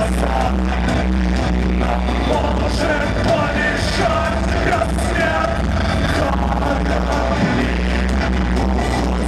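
Live electronic rock band playing: a male lead vocalist sings over a steady beat, a sustained low bass line and keyboards, heard through the club's PA.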